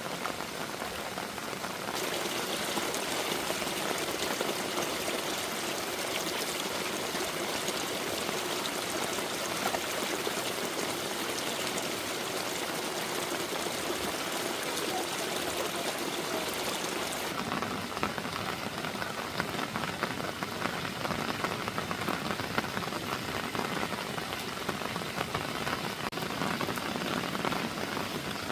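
Heavy rain falling, a dense steady patter; its sound shifts abruptly about two seconds in and again a little past halfway.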